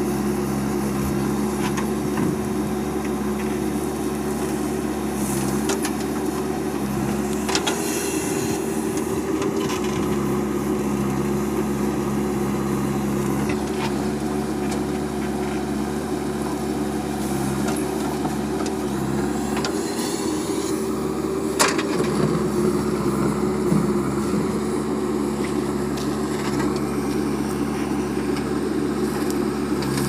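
JCB 3DX backhoe loader's diesel engine running steadily under load while the backhoe digs and dumps soil. A few sharp knocks come through, the loudest about 22 seconds in.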